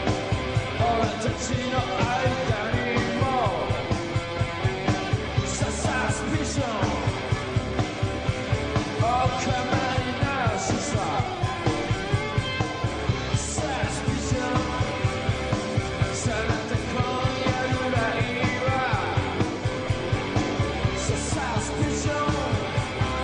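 Rock band playing live: electric guitars, bass, drums and keyboards driving a steady beat.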